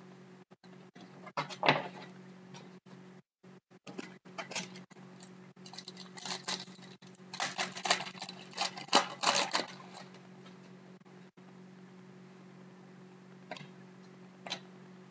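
Hockey trading cards being flipped through and handled: a string of quick papery clicks and rustles, densest about halfway through, over a steady low hum.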